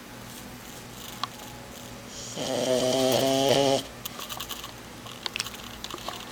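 A sleeping 4-month-old French Bulldog puppy snoring: one long, loud raspy snore starts about two and a half seconds in and lasts about a second and a half, between quieter breaths. A few faint clicks sound around it.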